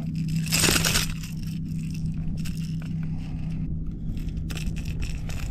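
Metal pliers clicking and clinking against a topwater plug's treble hooks while unhooking a small snook, with handling rustle. A loud rustling burst comes about half a second in, over a steady low hum.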